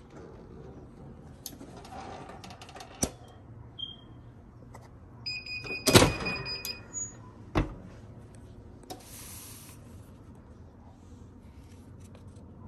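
Clamshell heat press being worked by hand: an electronic beep sounds for about a second and a half, and midway through it the press handle moves with a loud metal clunk. A second knock follows a moment later, with lighter clicks and handling rustle around them.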